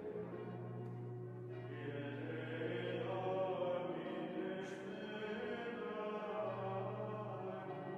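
Gregorian chant sung by a choir of Benedictine monks: slow, sustained men's voices moving together on a single melodic line.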